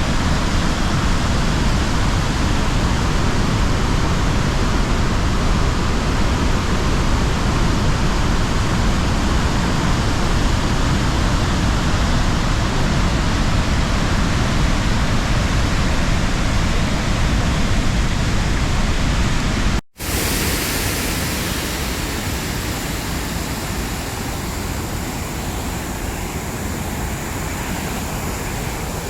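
Steady roar of a large waterfall's cascading water. It cuts off abruptly about two-thirds of the way through and gives way to a different, slightly quieter steady rushing noise.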